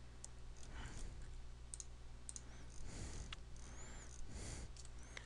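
A few faint computer mouse clicks, scattered and well apart, over a low steady hum.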